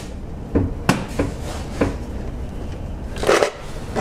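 Rubber radiator coolant hose being twisted and pulled off its radiator outlet, giving a run of sharp clicks and knocks, with a short rushing burst near the end.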